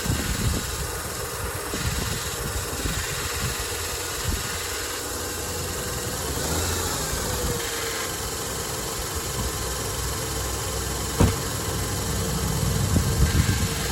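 A 2005 Lexus IS300's 2JZ-GE inline-six idles steadily after its alternator has been replaced. There is a single sharp click about eleven seconds in.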